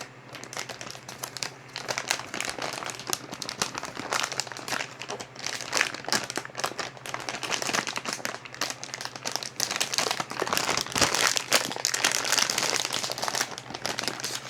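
Packaging crinkling and rustling in irregular bursts of sharp crackles as it is handled and unwrapped, growing busier over the last few seconds.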